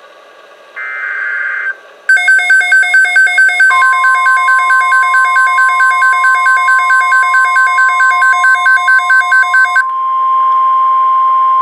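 NOAA Weather Radio alert tones. About a second in there is a one-second buzz of SAME header data. From about two seconds a receiver's alarm beeps rapidly, about five times a second. From about four seconds the steady 1050 Hz warning alarm tone sounds under the beeps and carries on alone after they stop near the ten-second mark.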